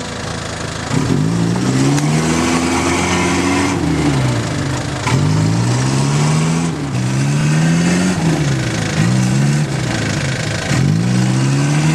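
Isuzu Trooper engine revving up and dropping back, over and over every second or two, as the 4x4 strains to pull itself out of deep mud.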